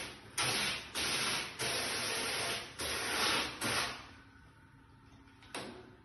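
Water spraying from a handheld shower head, a loud steady hiss that stops and starts abruptly several times and cuts out about four seconds in, followed by one brief burst near the end.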